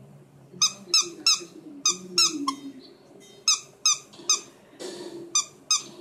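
Squeaker in a plush hot dog toy squeaking as a small dog chews it: about a dozen short, high squeaks in quick runs, each dipping slightly in pitch, with short pauses between the runs.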